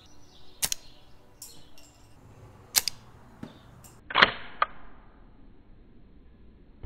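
A mini 3D-printed rubber-band crossbow with two bands on each side, snapping sharply as it is worked and shot. There are about four snaps, the loudest near three seconds and just after four seconds.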